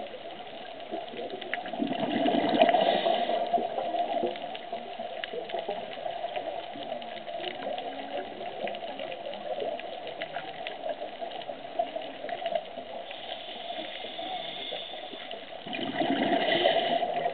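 Underwater sound: distant whale song heard through the water as a steady wavering hum, with scattered clicks and crackles. A diver's regulator exhaling bubbles gushes twice, about two seconds in and again near the end.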